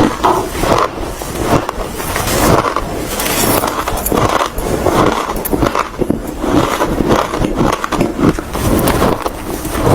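Ice being chewed close to the microphone: a continuous run of crunching and cracking.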